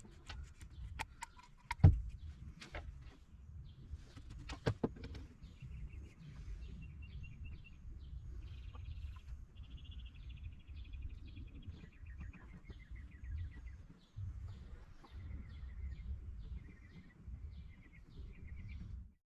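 Small birds chirping over and over in short trilled calls, over a steady low rumble. A few sharp clicks or knocks come in the first five seconds, the loudest about two seconds in.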